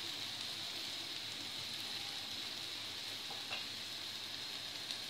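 Potato rings deep-frying in hot oil in a pan: a steady sizzle, with a couple of small pops near the end.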